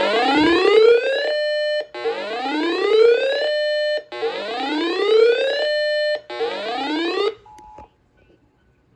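Electronic whooping alarm tone: four rising sweeps in a row, each climbing in pitch and ending on a short held tone. The last sweep is cut off, then a brief beep sounds.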